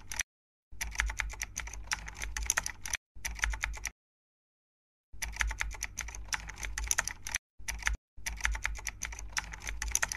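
Computer keyboard typing sound effect: rapid key clicks in several bursts, broken by short dead-silent pauses.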